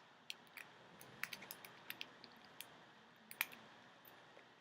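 Faint, irregular metallic clicks of a lock pick and tension tool working the pins inside a Master Lock padlock, with the loudest click about three and a half seconds in.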